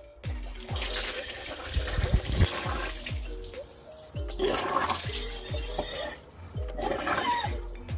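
Water from a garden hose gushing and splashing through a 2000 Honda Civic engine's coolant passages, flushing out old coolant and gunk. It comes in surges over a background music beat.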